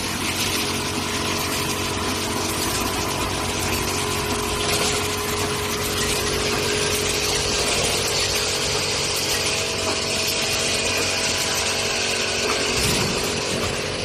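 Factory machinery running with a steady hum, a few held whining tones and a constant hiss, with a brief low thud near the end.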